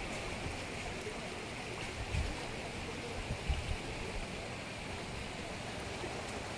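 Steady rush of flowing stream water, with a few short low thumps on the microphone about two and three and a half seconds in.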